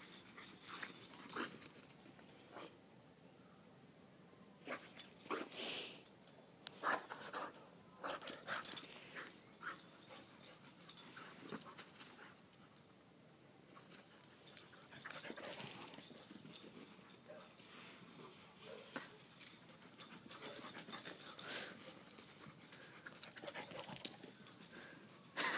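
Vizsla dog breathing hard in irregular bursts as it runs and plays with a stick, with two short quiet pauses.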